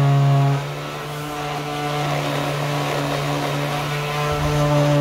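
Electric power sander running with a steady hum while sanding fiberglass body filler; its level drops sharply less than a second in, then gradually builds again.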